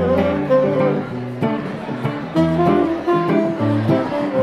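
Background music led by guitar, with held notes and chord changes.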